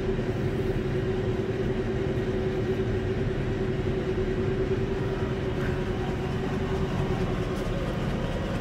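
Steady machinery hum and rumble with one constant drone pitch, unchanging throughout.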